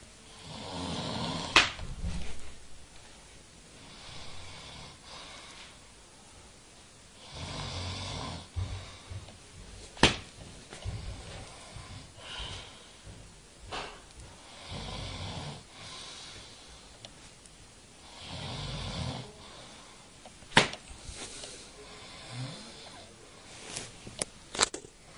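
A sleeping man snoring, each snore a drawn-out rasping breath every few seconds. Sharp flyswatter slaps cut in now and then and are the loudest sounds: three spread far apart, then a quick few near the end.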